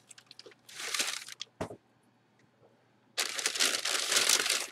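Packaging bag crinkling as it is handled: a short rustle about a second in, a sharp click, a brief pause, then loud, continuous crinkling from about three seconds in.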